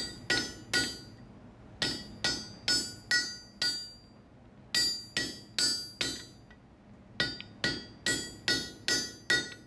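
Hammer blows on a hot steel bar set over a cut-off hardy in an anvil, each strike ringing. The blows come about two or three a second in runs of several strikes with short pauses, cutting the piece off the stock.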